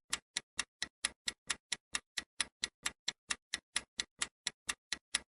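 Clock-style ticking sound effect of a quiz countdown timer, an even run of sharp ticks about four and a half a second, marking the time left to answer.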